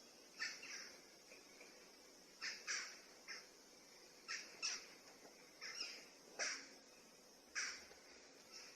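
A bird calling repeatedly in short, sharp calls, often in quick pairs, about every one to two seconds, over faint background hiss.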